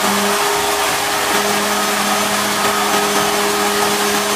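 Cold spark machine firing a fountain of sparks on its second height setting: a steady rushing hiss with a low, even hum underneath.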